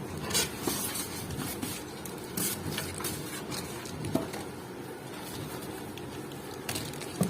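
Scattered light clicks and rustles of objects being handled over a steady low background hum.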